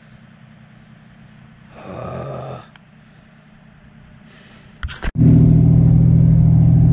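A few sharp clicks, then an engine starts about five seconds in and runs loud and steady. Before it, a faint steady hum and a brief rustling noise about two seconds in.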